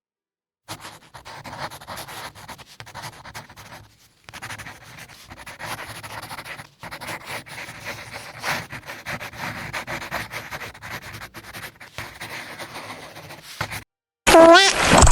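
Irregular breathy, rustling noise with a few short breaks, of the kind that panting or rubbing makes. About fourteen seconds in, a much louder pitched sound with sliding rises and falls cuts in.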